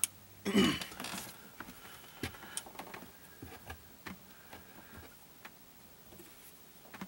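Light scattered clicks and taps of steel cutting pliers against a metal fuel-hose clamp as they are worked onto its ear, with a louder brief handling noise about half a second in.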